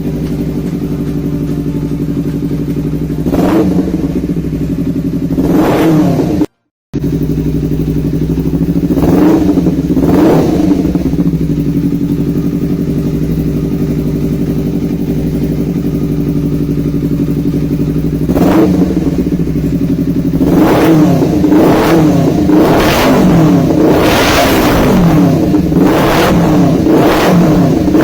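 Honda CBR250RR's 249 cc parallel-twin engine with an aftermarket racing exhaust, idling steadily and revved in short throttle blips. There are a few blips early on, then they come often and close together over the last several seconds. The sound cuts out briefly once.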